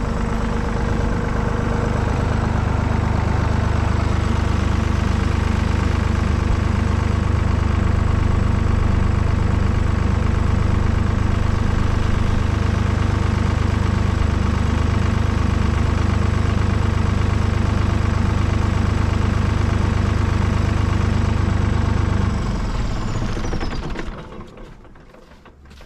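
Tractor engine running steadily, picking up slightly about two seconds in, with a faint high whine over it; near the end it is shut off and winds down, the whine falling away as it stops.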